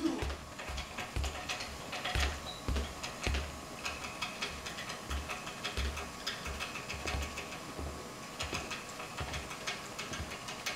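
A small dancing puppet tapping and clattering on a board: about two low thumps a second with sharp clicks between them, thinning out in the second half.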